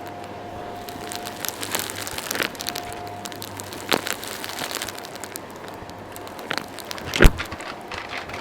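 Vacuum cleaner running while its nozzle sucks up crunchy dirt and grit, with steady crackling and clicking of debris rattling up the hose and a sharp knock about seven seconds in.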